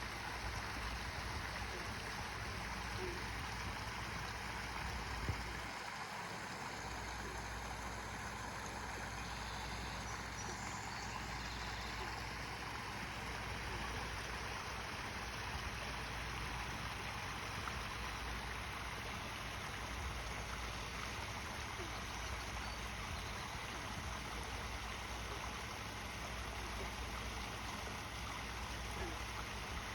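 Backyard waterfall: water falling and splashing steadily in an even rush.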